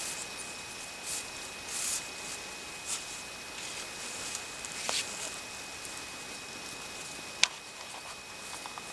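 Faint, scattered rustling and handling noises, with one sharp click about seven and a half seconds in, over a faint steady high-pitched tone.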